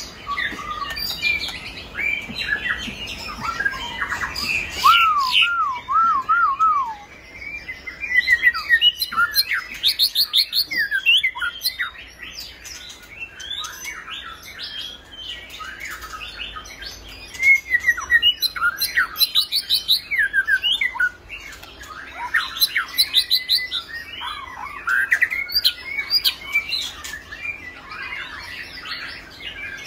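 White-rumped shama singing a long, varied song of whistled phrases and fast trills, with a run of looping whistles about five seconds in.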